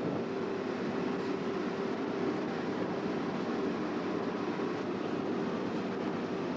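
Steady drone of a motor ship's engines with a constant low hum running underneath.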